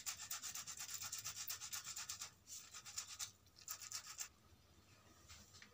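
Boiled potato being grated on the fine holes of a stainless steel box grater: quick, faint, repeated scraping strokes that thin out and stop about four seconds in.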